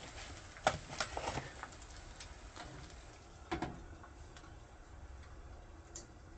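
Clicks and knocks as the Coleman Max camp stove's lid is handled and closed down over the griddle, the loudest knock about three and a half seconds in. Faint ticking of eggs frying on the griddle underneath.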